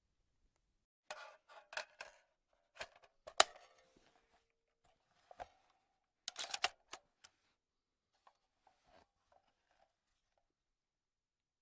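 Rifle handling sound effect: a series of sharp metallic clicks and clacks in short clusters, like the action being worked. The loudest clack, about three and a half seconds in, is followed by a brief metallic ring, and faint ticks follow near the end.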